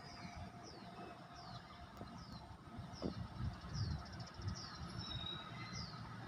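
A bird calling over and over, a short high note that falls in pitch, about one and a half times a second, over a low rumble.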